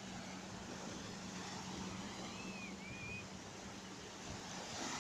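Small sea waves washing onto a sandy beach, an even rushing hiss, over a steady low hum. Two short high chirps sound about halfway through.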